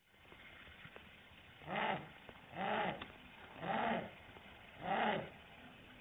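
Short-eared owl calls, slowed down to a deep pitch: four short calls about a second apart, each rising and then falling in pitch.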